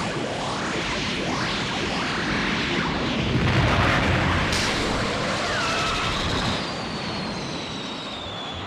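Dragon Ball Z anime sound effects: a dense rushing blast with sweeping pitch glides that swells to a loud boom about three and a half seconds in, followed by thin falling whistle-like tones as it slowly fades.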